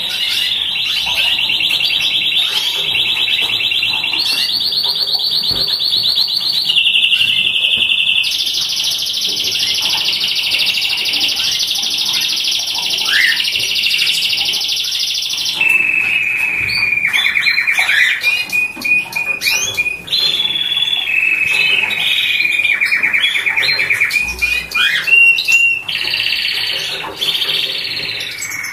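White domestic canary singing a chain of rapid rolling trills, each held for a few seconds before it jumps to a new pitch. The longest runs about seven seconds from near the eight-second mark. After it come shorter trills broken up by quick chips and upward-sweeping notes.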